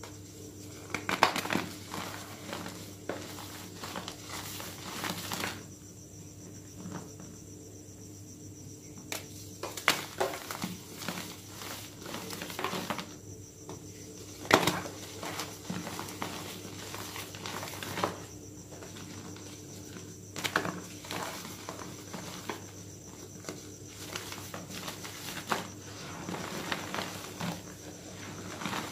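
Gym chalk blocks being squeezed and crumbled by hand in loose powder: irregular soft crunching and crackling, with a handful of sharper snaps as pieces break.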